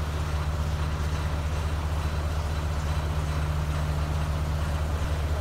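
A heavy engine idling steadily with a low, even throb.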